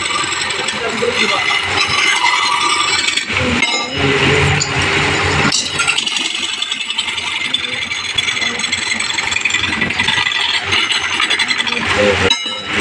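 Wood lathe running while a hand-held chisel cuts into a large spinning wooden disc, giving a continuous rough scraping, rattling cut over the motor's hum. The sound breaks off briefly about three seconds in and again near the end.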